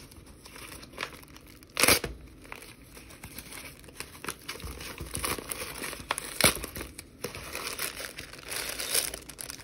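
Brown kraft paper mailer bag being torn open by hand and crinkled, a steady paper crackle with two sharp, louder rips, one about two seconds in and one after six seconds.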